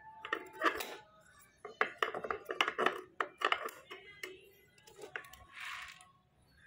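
Clinks and knocks of a child's tricycle's steel handlebar frame and its clamp plates being moved by hand, a quick run of sharp metal knocks in the middle and a short scrape near the end.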